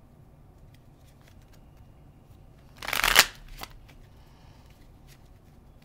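Tarot deck being shuffled by hand: scattered soft card clicks, then a short, loud burst of shuffling about three seconds in, followed by a smaller one.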